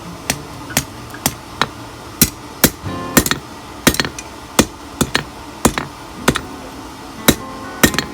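Hand hammer striking hot mild steel on an anvil in a steady rhythm of about two blows a second, each blow sharp with a short metallic ring, while the handle of a hook is forged to shape.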